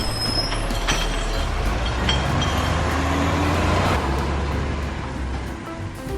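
Steady rumbling vehicle noise with a heavy low hum, easing off near the end.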